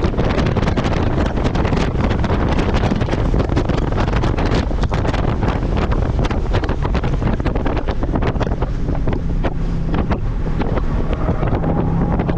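Heavy wind buffeting on the microphone of a car at track speed: a loud, steady rush with constant gusty crackling that buries the other sounds.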